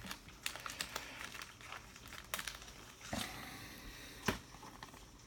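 Trading cards and a thick plastic card sleeve being handled, crinkling and rustling, with a few sharp clicks. The loudest comes about three seconds in and again a second later.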